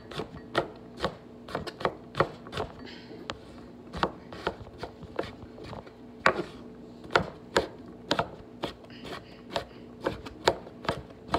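Kitchen knife chopping on a wooden cutting board: steady, evenly spaced strokes about two a second.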